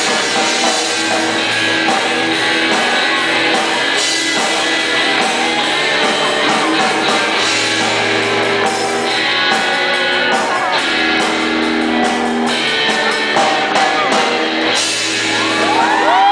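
Live rock band playing: electric guitars, bass and drums with singing. Near the end a held note comes in with a bend up in pitch.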